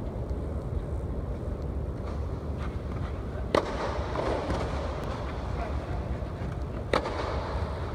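Tennis racket striking the ball with a sharp pop, twice, about three and a half seconds apart, echoing in an indoor court, over a steady low rumble.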